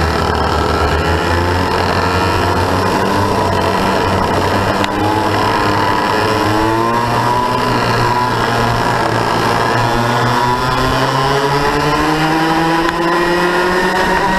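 Onboard sound of a racing kart's two-stroke engine at full race pace in a close pack, the revs dipping and rising through the corners, then climbing steadily down a straight near the end.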